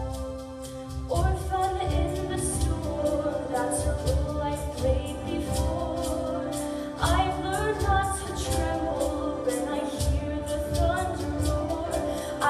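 A woman singing a solo musical-theatre ballad over instrumental accompaniment with a steady low beat. New sung phrases begin about a second in and again about seven seconds in.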